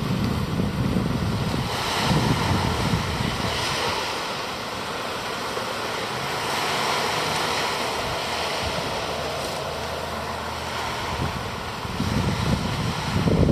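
Ocean surf washing steadily, with wind buffeting the microphone in low rumbling gusts, strongest near the start and again near the end.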